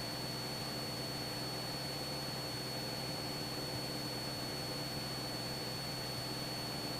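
Cessna 172 cabin noise in level flight: the engine's steady low drone with hiss over it and a thin, constant high-pitched tone.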